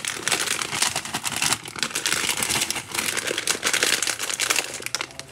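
Foil snack-chip bag crinkling as hands grip, squeeze and work at it, a dense run of irregular crackles.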